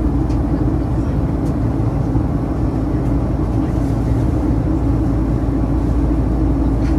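Boeing 737-800 cabin noise on approach: the CFM56-7B engines and the air rushing past the fuselage make a steady low rumble with an even hum, unchanging throughout.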